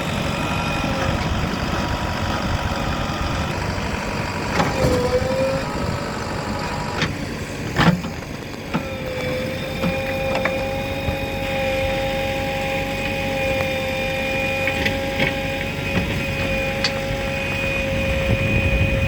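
Heavy machinery engine running steadily, with a steady high whine over it and a couple of sharp knocks, around five and eight seconds in.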